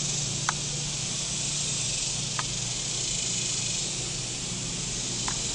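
Honeybee colony buzzing around an exposed hive, a steady hiss-like hum, with a few single bees zipping briefly past the microphone.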